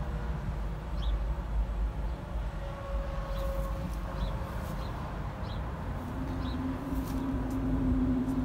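Outdoor background of road traffic: a steady low rumble, with a vehicle's hum building about six seconds in. A few faint short chirps come through now and then.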